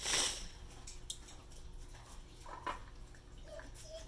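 Small handling noises: a short rustle right at the start, then light clicks and a brief squeak near the end as the dropper top is twisted off an amber glass tincture bottle.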